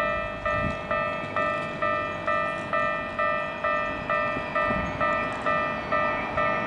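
Japanese railway level-crossing warning bell ringing, the same ringing ding repeated a little over twice a second: the crossing alarm sounding for an approaching train.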